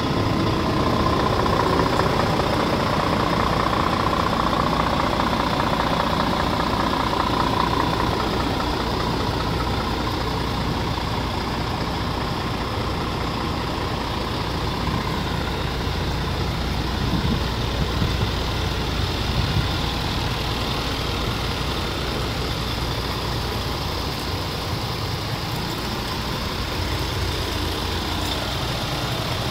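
Scania R490 truck's 13-litre straight-six diesel idling steadily, with a higher whine over about the first eight seconds.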